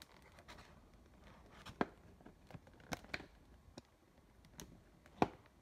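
A bag of tortilla chips being handled, giving a few scattered crinkles and crackles, the sharpest about five seconds in.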